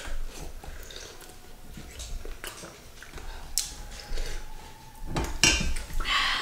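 Table eating sounds: a spoon clinking and scraping on ceramic and metal bowls, with chewing, in a string of small clicks that grows busier and louder near the end.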